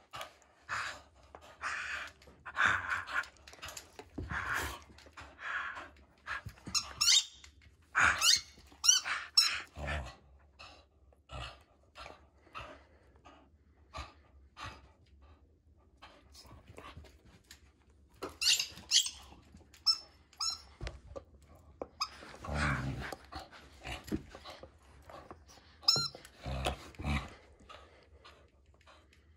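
Border collie play-tugging and mouthing at a rubber ball held in a person's hand, giving irregular bursts of high-pitched squeaks and squeals with short pauses between.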